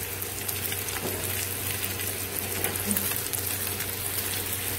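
Egg and vegetable omelette sizzling in hot oil in a pan, a steady frying hiss.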